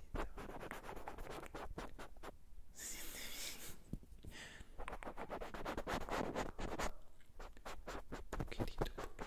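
Cotton swab rubbed and scratched against the microphone as simulated ear cleaning: a close, dense run of small crackling scratches, with a short hissy brushing stretch about three seconds in.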